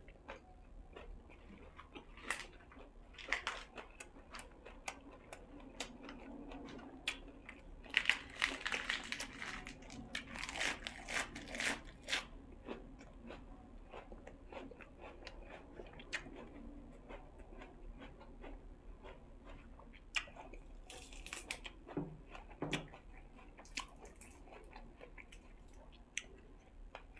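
A person biting and chewing food, with crunching and many small clicks throughout. It is busiest from about 8 to 12 seconds in, with another brief flurry around 21 seconds.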